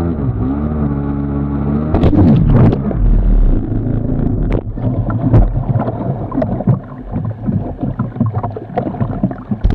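Kawasaki 750SX stand-up jet ski's two-stroke twin engine running with a wavering pitch, then about two seconds in a loud splash, after which rushing water and spray with repeated knocks and slaps take over from the engine.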